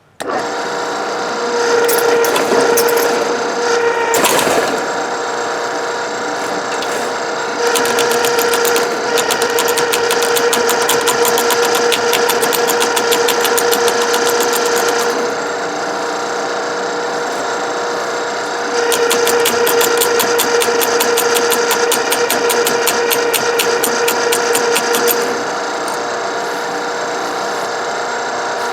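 Ridgid K-50 sectional drain machine switching on and running with a steady motor hum. It has two long stretches of fast, even rattling as the spinning cable works against a drain blocked with ice.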